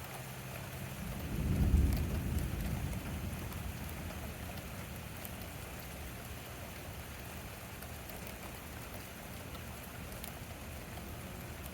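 Steady rain falling, with a roll of thunder that swells about a second in, peaks sharply, then rumbles away over the next few seconds.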